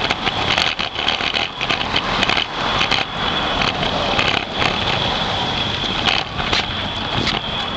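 Vibration noise from a handlebar-mounted camera on a dog scooter rolling along the pavement: a steady rattling rumble with a high-pitched tone held over it and frequent small clicks.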